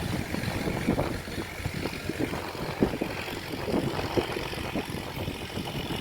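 Large flock of domestic ducks packed together, their massed quacking and calls blending into a dense, continuous buzz like a swarm of bees.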